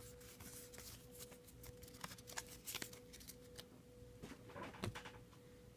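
Faint, scattered rustles and light clicks of trading cards and a foil booster pack being handled, over a faint steady hum.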